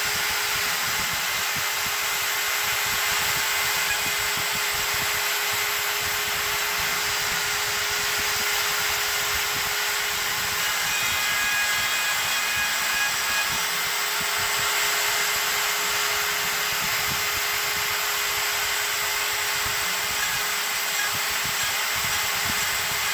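CNC router spindle running steadily while milling a slot in a wooden board: a constant high hiss with a steady whine.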